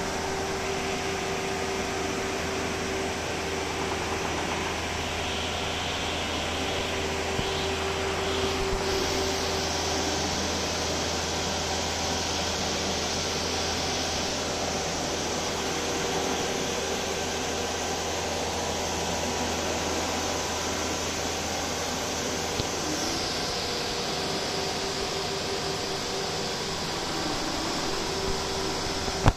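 Machinery of a twin-screw PVC pipe extrusion line running: a steady mechanical whir with a constant low hum and a steady tone over it. The hiss grows stronger for a stretch in the middle.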